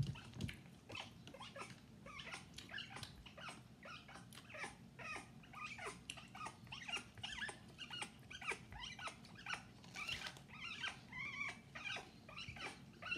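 African grey parrot making a quiet, steady run of short clicks and brief squeaky chirping notes, about two or three a second.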